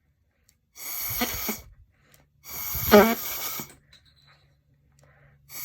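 Plastic straw kazoo, cut to three-quarter length, blown twice in two short buzzy blasts about a second each, the flattened, snipped reed end rattling.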